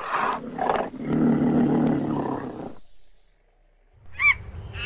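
A big cat roaring in a deep, rough growl that fades out after about three seconds. Short, harsh, repeated animal calls begin about four seconds in.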